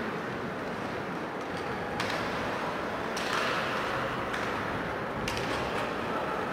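Steady arena noise of an ice hockey game in play, with a few sharp knocks about two, three and five seconds in.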